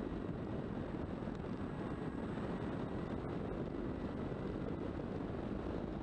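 Electric motor and propeller of an RC Spitfire heard through its onboard camera, running steadily at low power as the plane taxis on grass, with a faint high whine that rises slightly a couple of seconds in.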